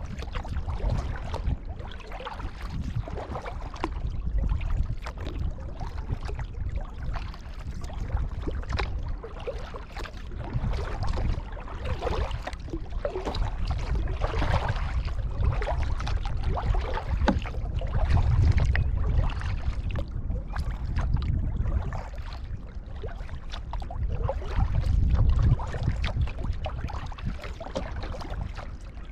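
Kayak paddling on open water: paddle blades dipping and splashing, with water dripping and lapping against the hull, over a steady low rumble that swells and fades.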